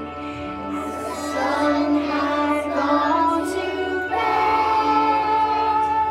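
A group of young children singing an action song together, with musical accompaniment.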